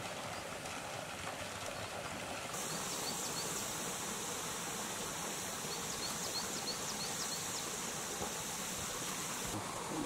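Steady outdoor ambience: the soft hiss of a thin stream of water splashing into a lake. From a couple of seconds in until near the end, a brighter high hiss joins it, with a run of faint, short, high chirps.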